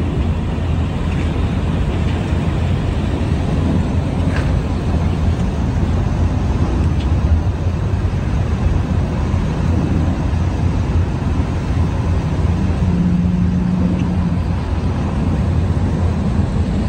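Steady low rumble of vehicle and traffic noise, with a short steady hum about thirteen seconds in.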